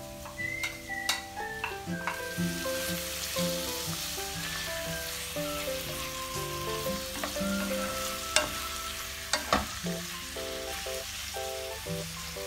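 Thin strips of raw beef sizzling in hot oil in a frying pan as they are added and spread out, with a few sharp clicks and knocks. Light background music with held notes plays underneath.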